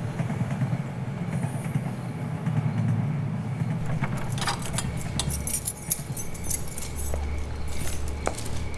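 A low rumble for the first few seconds, then a run of crisp crackling and clicking strokes from footsteps on pavement strewn with dry leaves, with a few sharper clicks near the end.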